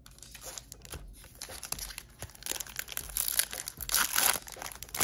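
Foil wrapper of a Topps baseball card pack crinkling and tearing as it is pulled open by hand, getting louder about halfway through.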